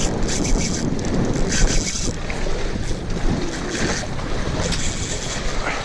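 Wind buffeting the microphone on an open boat at sea, over the wash of water, gusting unevenly.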